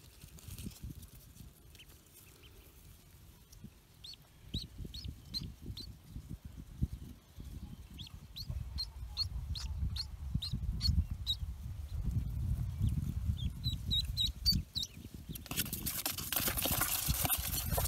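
Pekin ducklings peeping in runs of short, high chirps over low handling and rustling noise as they are lifted from their nest hole. Near the end a loud scratchy rustling on cardboard takes over as a duckling is set into a box.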